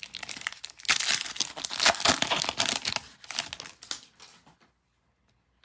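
Foil trading-card pack wrapper torn open and crinkled by hand: a dense crackle that is loudest in the first two seconds and dies away a little past four seconds in.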